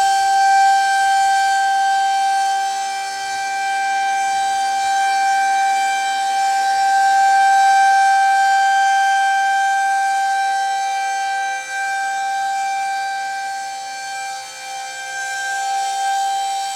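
Federal Signal 2001-130 rotating outdoor warning siren sounding its Alert signal: one steady tone held at a constant pitch. Its loudness slowly rises and falls as the rotating head turns toward and away.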